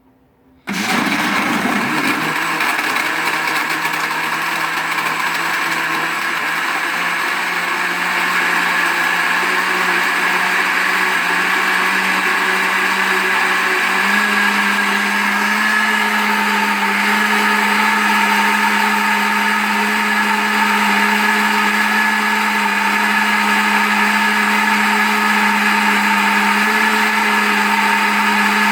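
Philco Inox Filter 600W blender motor switched on under a second in, spinning up and then running steadily. About halfway through its pitch steps up to a higher speed, a setting change on its electronic speed control.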